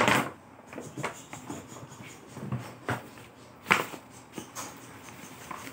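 Brown kraft paper bag rustling and crinkling as hands open it and reach inside, in short irregular scrapes, with a sharper crackle right at the start and another just before four seconds in.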